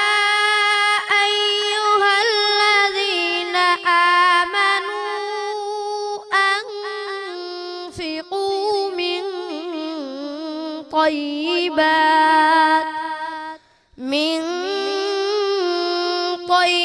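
A boy's voice chanting Quranic recitation (tilawat) in a melodic style into a handheld microphone. He holds one long ornamented phrase with winding pitch, breaks for breath about 13.5 seconds in, then starts the next phrase.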